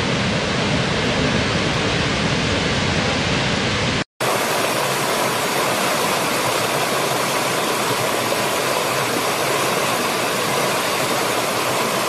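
Large waterfall's heavy, steady rush of falling water with a deep low end; it cuts off abruptly about four seconds in. It is replaced by the lighter, higher hiss of a small stream cascading over rocks.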